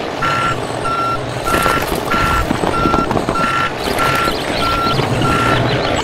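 Vehicle reversing alarm beeping at one steady pitch, about three beeps every two seconds, over a low engine rumble; the beeps stop shortly before the end.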